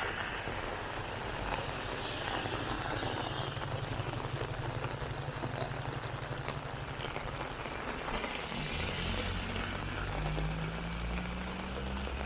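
Rain falling with a steady hiss, over the low hum of motor vehicle engines: one from about a second and a half in until about seven seconds, then another from about eight and a half seconds that rises slightly in pitch.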